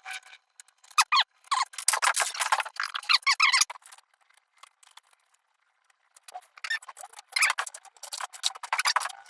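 Small machined metal gun parts, the hammer and hammer pin, being worked into a replica gun's frame by hand: metal squeaking and scraping on metal with small clicks, in two spells separated by a pause of a couple of seconds.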